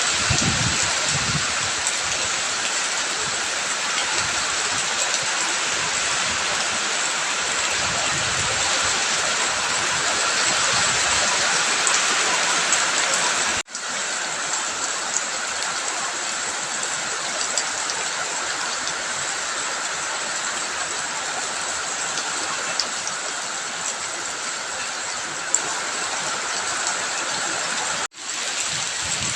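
Steady rain and running water, a dense even hiss that cuts out for an instant about halfway through and again near the end.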